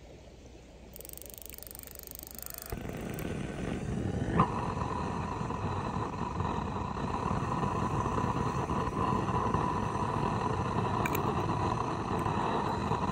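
Gas burner of a live-steam model locomotive being lit. Gas hisses first, a sharp pop about four seconds in marks the burner catching, and then it burns steadily with a rushing sound and a steady whining tone.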